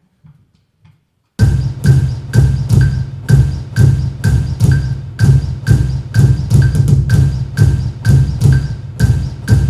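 Music with a steady percussive beat, about two sharp hits a second over a deep, sustained bass. It starts suddenly about a second and a half in, after near quiet.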